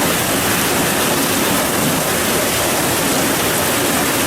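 Heavy rain pouring down in a severe thunderstorm: a loud, steady hiss.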